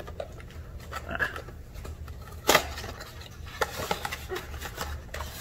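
Hands opening a cardboard trading-card box: scattered rustling and scraping of the cardboard flaps, with one sharp snap about two and a half seconds in.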